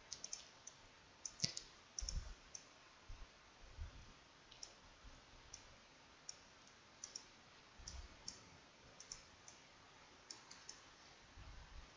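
Computer mouse buttons clicking faintly and at irregular intervals, with a few soft low thumps among them.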